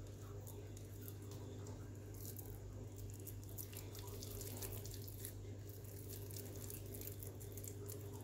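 Soft wet squishing and faint crackles of seasoned minced beef being kneaded and shaped into balls by hand, over a steady low hum.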